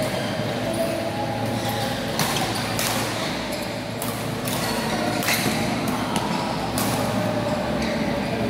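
Badminton rackets hitting a shuttlecock back and forth in a rally, a string of sharp hits about a second apart over a steady hum.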